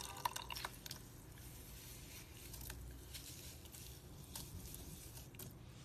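Thick slime mixed with sequins being squeezed and kneaded by hand: sticky squishing with small clicking pops, a quick run of them in the first second, then only an occasional single pop.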